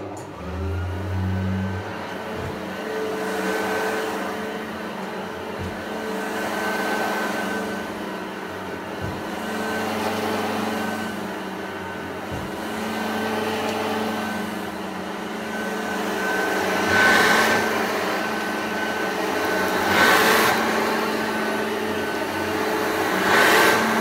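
Hoover Junior U1104 upright vacuum cleaner starting suddenly and running with a steady motor whine. Its level swells and fades every few seconds as it is pushed back and forth, with three brief louder rushes near the end.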